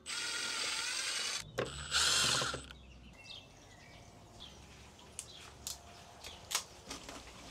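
Power drill running in two short bursts: about a second and a half, then a louder, shorter run after a brief pause, followed by faint clicks and knocks.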